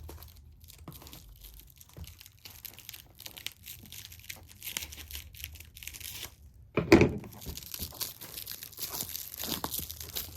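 Packaging being torn and crumpled by hand, a run of crackling and ripping with a louder sudden rustle about seven seconds in.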